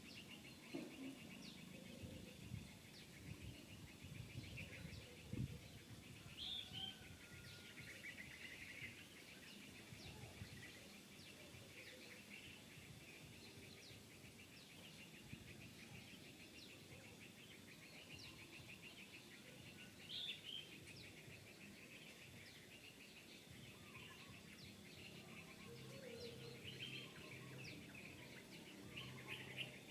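Quiet outdoor ambience with birds chirping and calling throughout. There are a few soft low knocks in the first several seconds.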